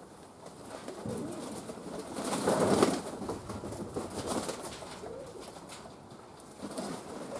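Domestic pigeons cooing, a series of separate low coos, the loudest about two and a half seconds in.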